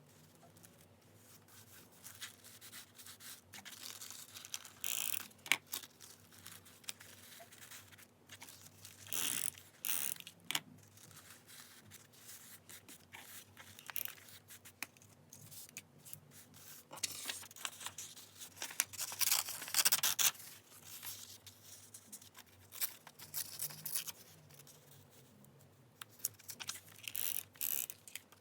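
Paper being handled for journal decorating: crisp rustling and tearing of paper in irregular bursts, with softer handling in the gaps.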